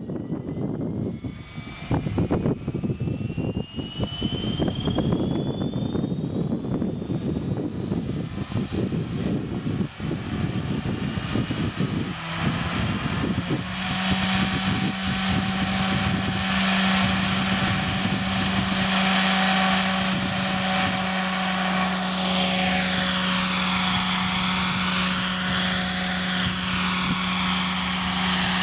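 Electric HobbyKing 500GT RC helicopter (T-Rex 500 clone) spooling up. The motor and rotor whine rises in pitch over about the first fourteen seconds, then holds a steady pitch at full head speed as the helicopter lifts into a low hover.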